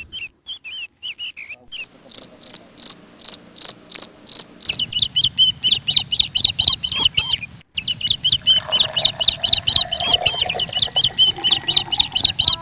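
High-pitched chirping calls, about two a second at first, growing denser and faster with several overlapping callers from about five seconds in, over a low rumble.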